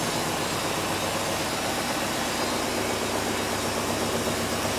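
Mazda RX-7 FC's 13B two-rotor rotary engine idling steadily at about 1,000 RPM on its first start, unmuffled, exhausting only through a flex hose.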